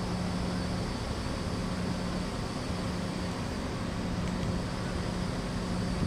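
Steady street background noise: a low, even rumble of traffic with a faint hum that comes and goes.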